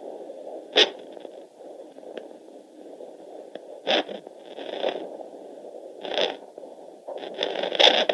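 Fetal Doppler's speaker hissing steadily with a handful of irregular loud scraping rasps as its probe is moved over the pregnant belly, searching between the mother's pulse and the baby's heartbeat, with no steady beat picked up.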